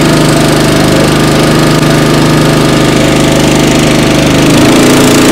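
Small Honda petrol engine running a fire-fighting water pump under load, a steady engine note while the pump drives water through the hose; about four and a half seconds in, the engine note changes.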